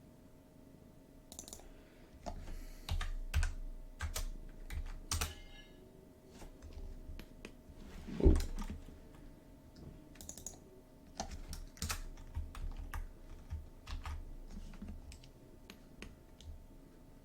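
Typing on a computer keyboard: irregular bursts of keystrokes, with one louder thump about halfway through.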